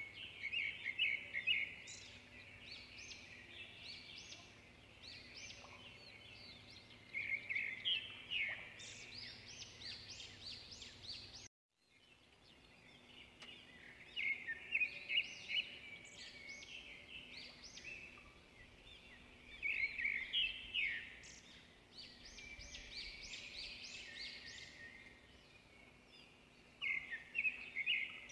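Small birds chirping and twittering in repeated quick clusters of short high notes. The sound cuts out briefly about eleven seconds in, then resumes.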